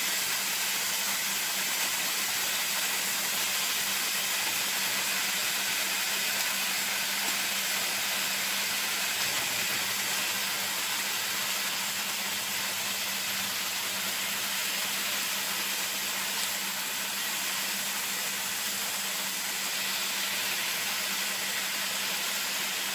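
Chicken thighs sizzling steadily in a dry, oil-free frying pan on high heat, with a steady low hum underneath.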